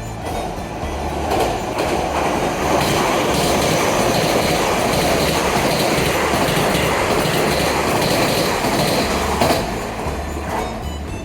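Keisei Skyliner express train running through a station: a steady rumble with wheels clacking on rail joints. It builds over the first couple of seconds and fades away near the end.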